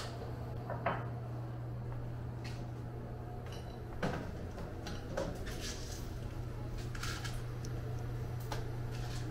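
Light clinks and knocks of cups and utensils being handled behind a café counter, a few separate taps over a steady low hum.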